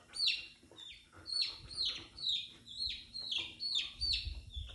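A baby chick peeping over and over, each peep a high note sliding downward, about two a second.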